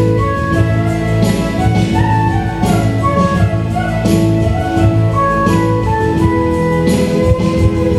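Hymn music: a flute-like melody of long held notes over chordal accompaniment, with a soft regular beat about once a second.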